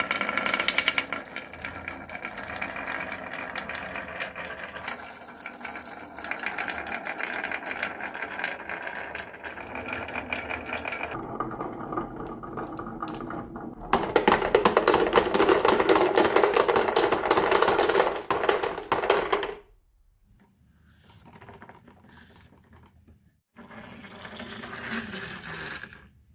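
Marbles rolling and clattering down a marble run track, a continuous rattle of many small clicks. A louder, denser stretch of rattling comes about two-thirds of the way through, then it breaks into shorter, quieter runs.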